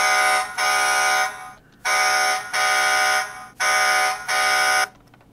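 The 2013 Hess toy truck's electronic sound effect beeping through its small speaker, in pairs of beeps, three pairs in all, stopping a little before the end.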